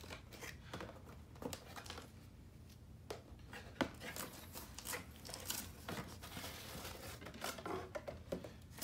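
Scissors cutting the tape on a cardboard figure box, then the flaps being opened and a flat cardboard insert pulled out: a run of short clicks, snips and cardboard rustling, busier in the second half.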